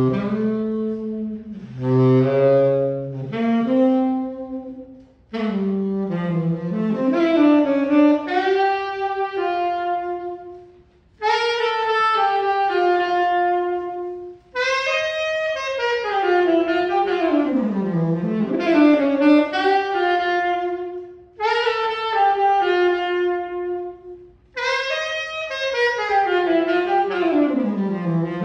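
Unaccompanied tenor saxophone playing a melody in phrases broken by short breaths, with a couple of quick runs sweeping downward.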